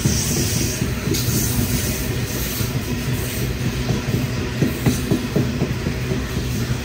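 Coal hopper wagons of a Hunter Valley coal train rolling past at close range: a steady heavy rumble from the wheels and wagons, with a run of sharp wheel clacks about two-thirds of the way through.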